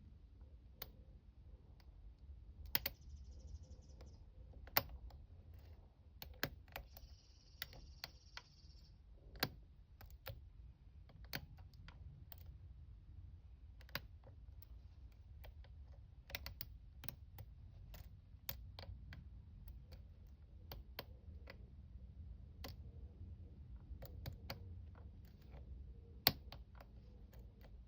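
Lock pick working the pins of a pin-tumbler lock: small irregular metallic clicks and taps as the half-diamond pick lifts and sets pins under tension, with a few sharper clicks.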